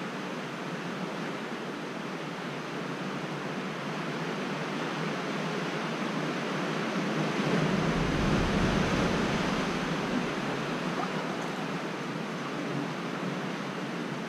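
Steady rushing noise of sea surf washing against the rocky coast, swelling louder with a deeper rumble for a couple of seconds in the middle.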